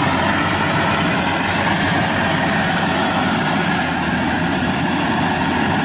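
FMWorld WD 102 Pro rice combine harvester running steadily while it cuts rice, its engine and harvesting machinery making a loud, even mechanical din.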